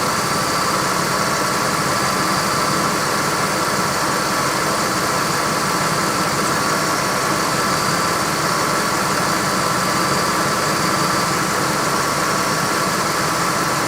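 1998 Ford Expedition's 5.4-litre V8 idling steadily with the air conditioning running on high, the AC system being topped up with refrigerant and nearly full.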